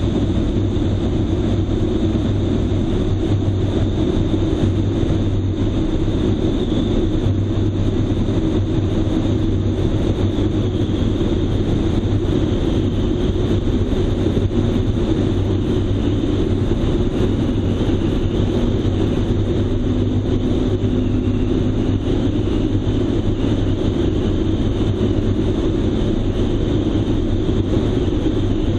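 Light aircraft engine running steadily in cruise flight, with wind rushing over the microphone.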